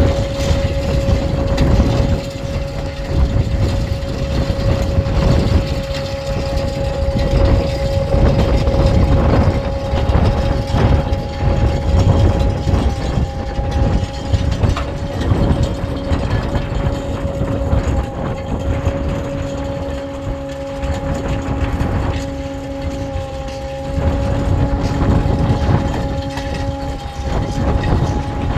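Tracked diesel tractor of the RNLI's Shannon Launch and Recovery System running steadily. Its low engine rumble carries a constant whine throughout, and a lower hum comes and goes in the second half.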